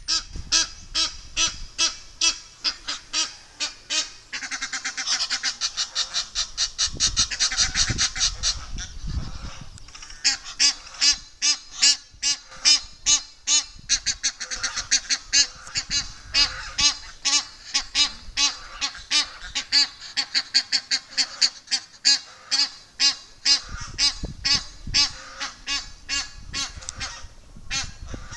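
Egyptian geese honking over and over in quick succession, a harsh repeated territorial call, with an unbroken run of calls from about four to nine seconds in.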